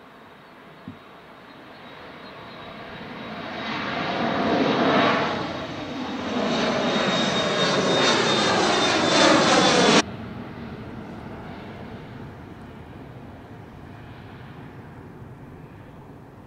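Twin General Electric CF34-8E turbofans of an Embraer E175 at takeoff power during climb-out, passing close overhead. The jet noise builds, with a steady high whine, then drops off abruptly about ten seconds in and fades as the aircraft climbs away.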